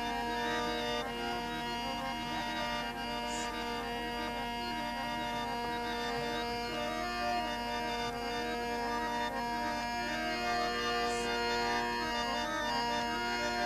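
Harmonium playing softly between sung verses: a steady held drone with a quiet melodic line moving over it.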